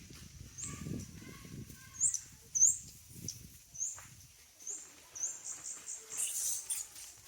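A series of short, high chirps from an animal, about eight of them spaced over six seconds, with low rustling in the first few seconds.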